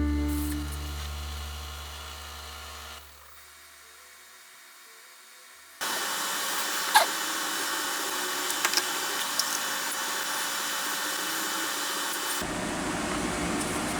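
Background music's last chord fades away, followed by a few seconds of near silence. Then a steady machine-like hiss starts suddenly, with a few sharp clicks in it, and about two seconds before the end it changes to a duller, lower hum.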